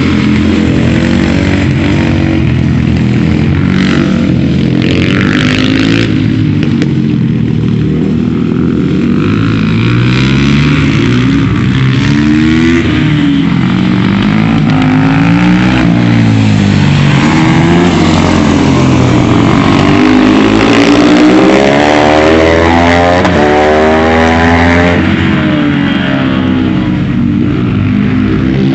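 Supermoto motorcycle engines racing past on a track, revving up and down through the gears over and over, with more than one bike often heard at once.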